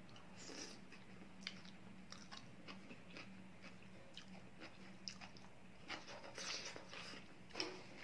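A person eating noodle soup close to the microphone: quiet chewing and slurping of glass noodles and broth, with small mouth clicks, and a longer slurp a little after six seconds in.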